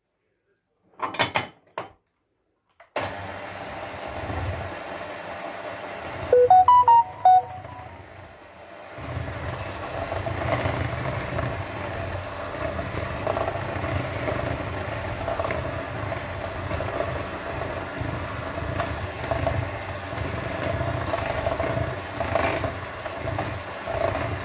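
Electric hand mixer running steadily, its beaters mixing flour into cake batter. The motor starts about three seconds in and a few seconds later runs louder. A few knocks come first as the flour goes in, and a short burst of loud clear tones sounds near the seventh second.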